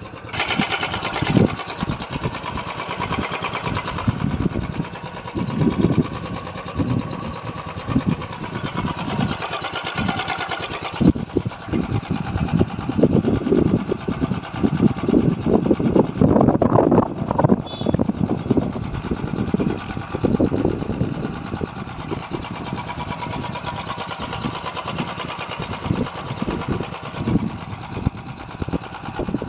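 Royal Enfield Classic 350's single-cylinder engine running, a rapid even beat of firing pulses and mechanical clatter that grows louder through the middle stretch and settles again toward the end.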